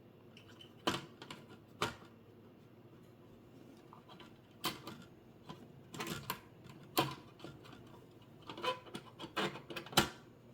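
Irregular clicks and light knocks of the monitor's internal covers being handled and set back in place, a dozen or so scattered taps with the sharpest one near the end.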